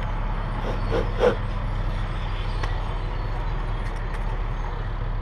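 Military truck's diesel engine idling steadily, a low even hum, with two short knocks about a second in.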